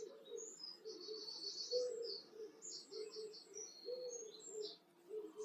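A small songbird singing a varied song of short high whistles and quick trills, the phrases following one another without a break.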